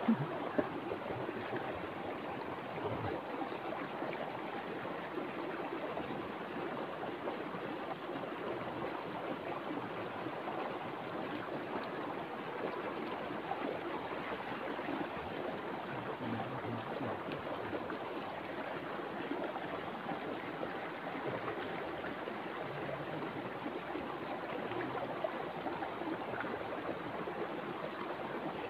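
A steady rushing noise, like running water, unbroken and even in level.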